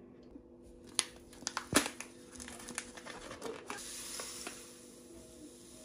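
Handling noises: several sharp clicks and knocks about a second in, then a rustling, crinkling sound with small ticks, over a faint steady hum.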